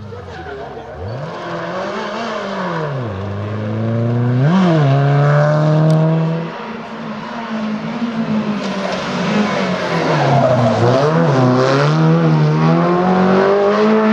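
Rally car engine revving hard, its pitch climbing and dropping again and again as it accelerates, lifts and shifts gear, loudest about four to six seconds in and again from about nine seconds in.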